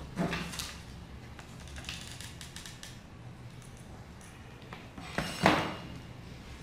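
Cut paper pieces being handled and laid on a layered paper picture: light rustles and small taps, with one brief, louder rustle about five and a half seconds in.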